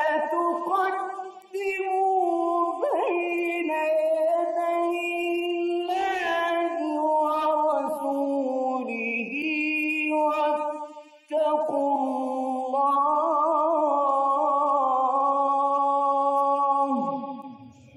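A man's solo voice reciting the Quran in the melodic mujawwad style, holding long, ornamented notes. There is a brief pause just after the middle, and the last note fades away near the end.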